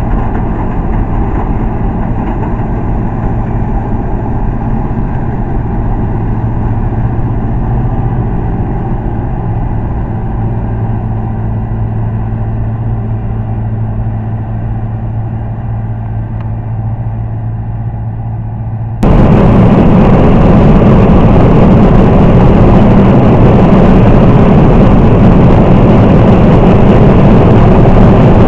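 Laverda M305 combine harvester running steadily while threshing barley, a constant engine hum. About two-thirds of the way through it jumps abruptly to a much louder, rougher din of the same combine heard from inside its cab.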